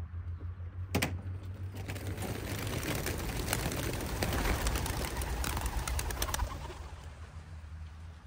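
A flock of racing pigeons taking off from transport crates: a sharp knock about a second in, then a dense clatter of many wings for about five seconds that fades away, with some pigeon cooing.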